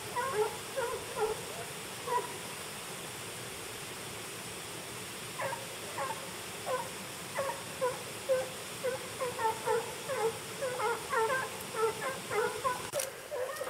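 A pack of hunting dogs baying at a wild boar they are holding at bay: short, falling yelps, a few at first, then after a pause of a few seconds coming thicker and faster.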